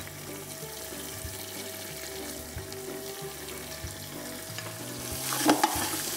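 Oil sizzling in a large aluminium pot as fresh coriander leaves go onto the frying onions, mint and ginger-garlic paste. From about five seconds in, a ladle scrapes and stirs, and the sizzling grows louder.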